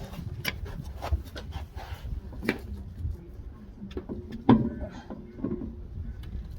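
Irregular clicks and knocks of hand tools and car parts being handled, with one louder knock about four and a half seconds in.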